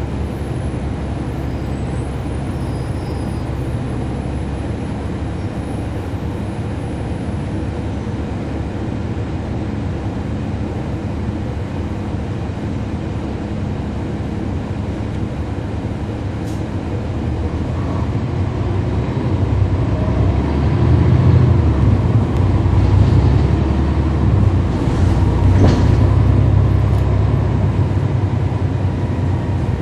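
Cummins ISL9 straight-six diesel of a NABI 40-foot transit bus heard from on board, running steadily, then louder with a stronger low rumble for about ten seconds from two-thirds of the way in, as the engine works harder.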